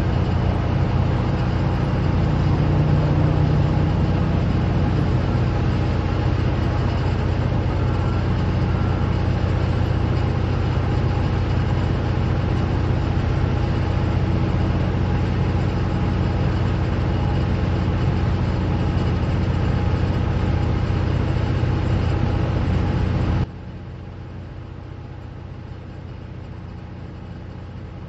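Freight train cars, refrigerated boxcars, rolling past at close range with a steady low rumble of wheels on the rails. About 23 seconds in it drops suddenly to a much quieter steady hum.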